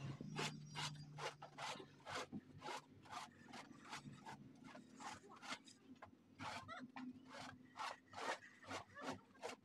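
Long straightedge rubbed back and forth over a cement-rendered wall, a faint rhythmic rasping scrape at about two to three strokes a second.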